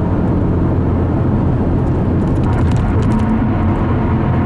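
Steady road and engine noise heard inside a car's cabin while driving along a highway.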